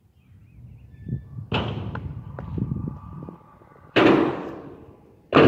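Kick scooter wheels rolling and clattering over concrete, then two loud bangs about a second and a half apart as the scooter slams down, each one ringing out briefly.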